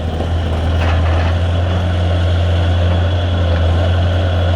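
Bobcat T300 skid steer's Kubota diesel engine running steadily with a deep, even hum, holding the same speed.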